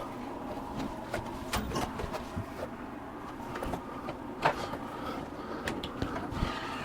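Scattered light clicks and knocks of a plastic cable and fittings being handled and routed between the units, over a steady background hum.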